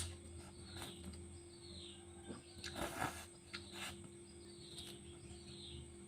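Quiet eating sounds from a spicy instant noodle and young mango mukbang: scattered mouth clicks and a louder crackly bite about three seconds in. Short high chirps falling in pitch come and go over a steady low hum.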